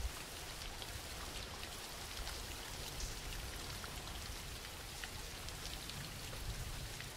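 Steady rain: an even hiss with a few faint drop ticks.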